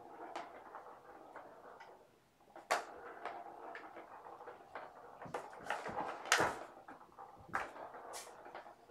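Scattered light clicks and knocks as kittens play at plastic ball-track toys, batting the balls around the tracks, with soft rustling during the first two seconds.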